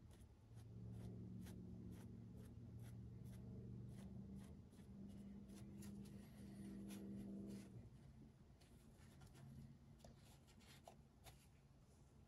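A faint low steady hum of several pitches starts about half a second in and fades out at about eight seconds, over faint, scattered light ticks.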